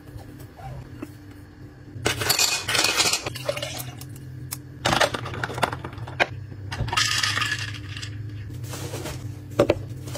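Food containers being handled and closed: a stainless-steel lid screwed onto an insulated food jar and the cap of a plastic drinking bottle snapped shut, in several scraping bursts with clinks, and sharp clicks near the end.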